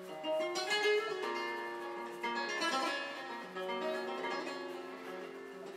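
Background music: a guitar playing plucked notes that ring on, one after another.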